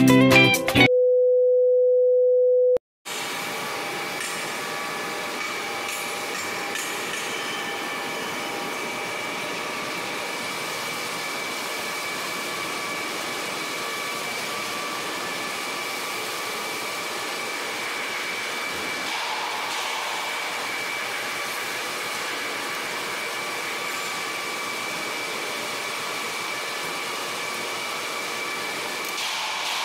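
A single steady electronic beep lasting about two seconds, then a steady mechanical hum with a faint high whine that runs on unchanged, as of workshop machinery running.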